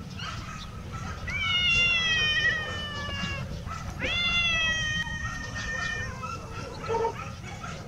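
A cat meowing twice: two long, drawn-out meows of about two seconds each, each sliding slightly down in pitch, followed near the end by a short faint call.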